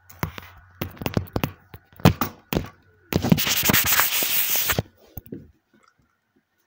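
Handling noise from the phone recording: a run of irregular knocks and taps, then a rough rubbing noise lasting about a second and a half, and a few light taps after it.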